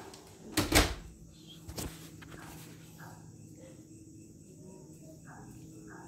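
A door banging open or shut with a sharp clack about a second in, followed by a softer knock. After that, faint rapid, evenly spaced chirping in the night background.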